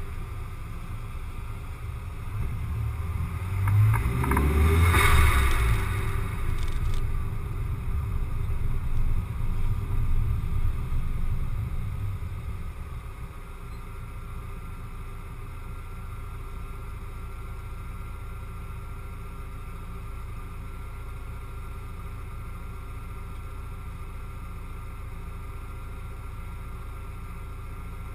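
Car driving with a low rumble of engine and road noise and a louder rushing swell about five seconds in, then slowing to a stop about thirteen seconds in and idling with a steady low hum.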